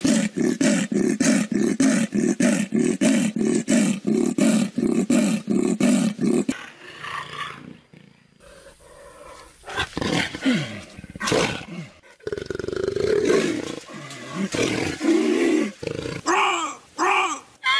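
Leopard vocalising: a fast, even run of grunting calls, about three a second, typical of a leopard's sawing call, for the first six seconds or so. Then quieter, irregular growls, and louder growls and snarls from about twelve seconds in.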